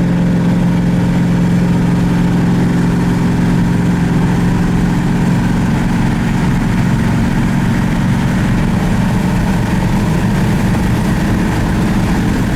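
Vehicle engine running at a steady speed, a constant low hum with no revving.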